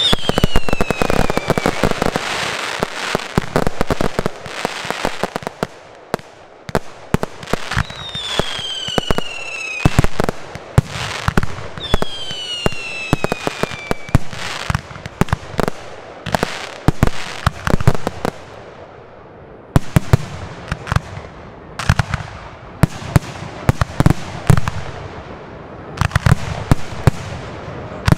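Fireworks display: a dense run of sharp bangs and crackles from shells and cakes bursting, with three falling whistles, one at the start, one about eight seconds in and one about twelve seconds in.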